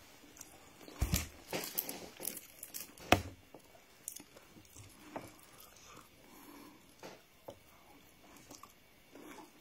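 A person chewing a mouthful of white rice and tomato stew: wet mouth clicks and crackles, busiest in the first three seconds, with one sharp click about three seconds in.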